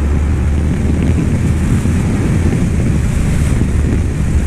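Wind rushing over the microphone of a rider at road speed, with the steady low drone of the BMW F650GS's 800 cc parallel-twin engine underneath.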